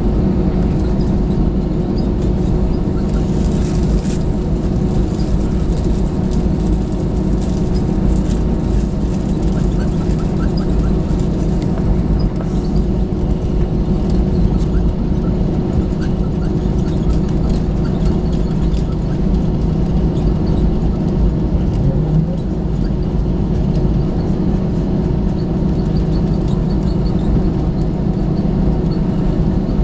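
Steady engine drone and airflow noise inside the cabin of an Airbus A321 airliner, with a constant low hum.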